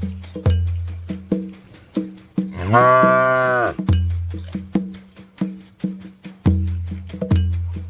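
A cow moos once, a call of about a second about three seconds in, over background music with a steady, quick percussion beat and low bass notes.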